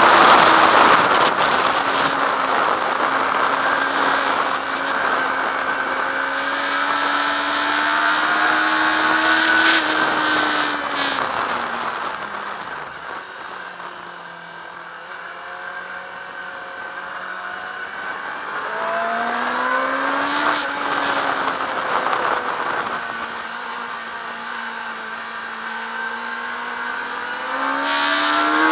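Yamaha R6's inline-four engine heard onboard at speed on a racetrack, with wind rushing over the microphone. The revs climb and drop through the gears. They fall away and go quieter about twelve seconds in, pull up again around twenty seconds, and climb once more near the end.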